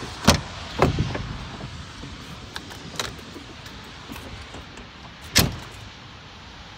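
MAN TGX truck's cab door being opened and shut: sharp latch clicks and knocks in the first second and another about three seconds in, then the door closes with a heavy thump a little after five seconds.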